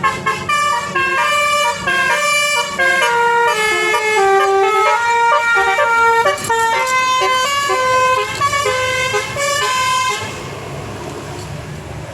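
Bus telolet horn of the Basuri type playing a melody: a fast run of several-tone notes stepping up and down in pitch, loud. It stops about ten seconds in, leaving the low hum of engine and road noise.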